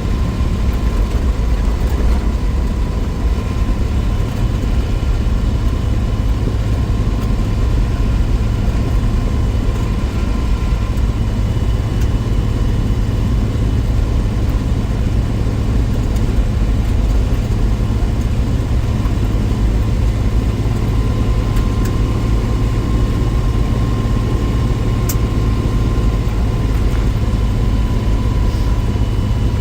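A 1963 Willys Wagon's Tornado 230 overhead-cam straight-six runs steadily on the road, with a deep, even rumble and a faint steady whine above it.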